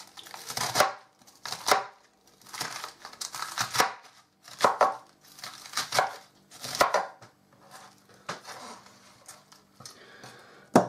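Iceberg lettuce being sliced with a large kitchen knife on a cutting board: crisp crunching cuts about once a second, fainter toward the end, with a sharp knock of the knife on the board just before the end.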